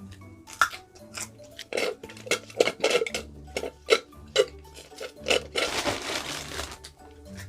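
Fork clinking and tapping on a plate in a string of sharp strikes, with one longer noisy stretch about a second long past the middle.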